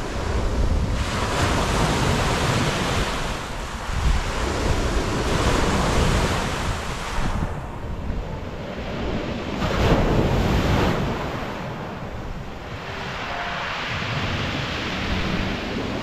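Small Black Sea waves breaking and washing on a pebble beach, rising and falling in several surges, with wind buffeting the microphone.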